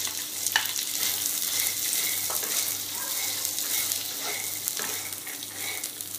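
Sprouted black gram sizzling as it fries in a little hot oil in a non-stick wok, with a steady hiss and occasional short clicks and scrapes of a spatula stirring the grains against the pan.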